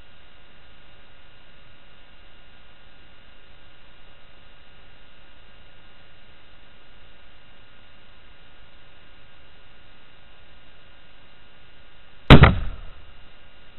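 A single rifle shot about twelve seconds in, sudden and very loud, with a short ringing tail, fired at a wild boar at a feeder and hitting it. Before it, only a steady faint hiss with a thin hum.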